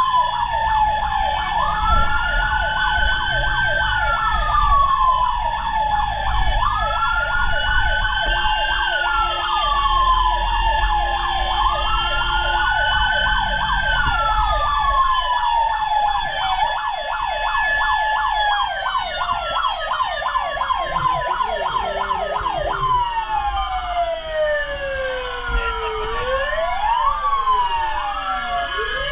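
Fire truck sirens sounding together: a wail that rises and falls about every five seconds over a rapid yelp and a steady tone. From about two-thirds of the way in, several sirens overlap, sliding up and down in pitch as the trucks pass.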